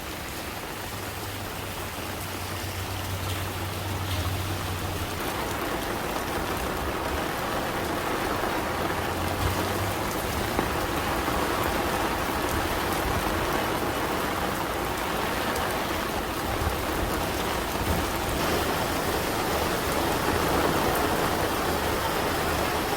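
Steady rain falling, growing louder over the first several seconds, with a faint low hum at times.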